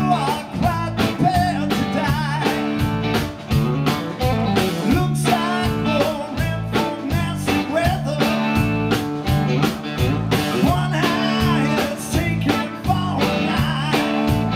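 Live rock band playing with a steady beat: electric guitar, bass guitar and drum kit together.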